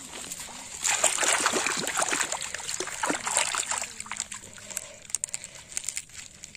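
Water splashing and sloshing, loudest from about a second in until about four seconds, then fading to a few scattered splashes and clicks.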